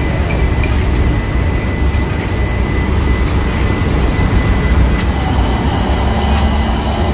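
Steady, loud, low machinery rumble of a ship's engine room with running engines, with a thin steady high tone over it.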